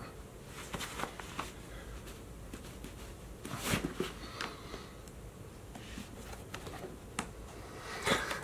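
Faint rustling and scuffing of a black leather Blundstone Chelsea boot being pulled off a socked foot and handled, with a few short clicks; the loudest scuff comes a little past halfway.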